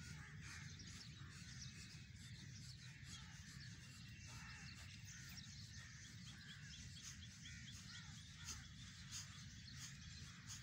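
Faint birds calling over a low steady rumble, with a quick run of short repeated chirps a few seconds in.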